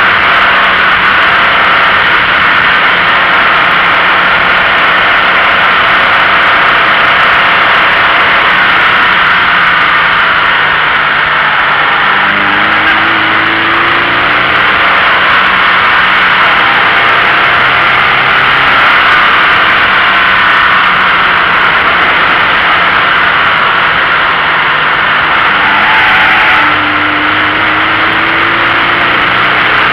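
Toyota GT86 driven on a winding mountain road: a steady rush of wind and road noise over its low-mounted camera, with the car's flat-four engine underneath, its note climbing in pitch about halfway through and again near the end.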